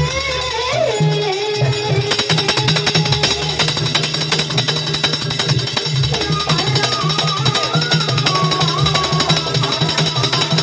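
Live jaranan ensemble music: drums and deep gong-like tones under a wavering lead melody. About two seconds in the drumming turns dense and fast, and the melody comes back in over it in the second half.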